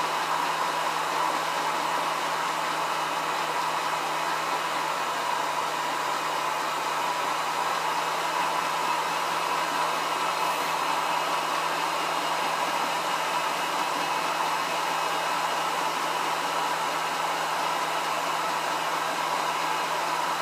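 Electric honey extractor running steadily: a continuous motor whir with an even hum underneath, unchanging throughout.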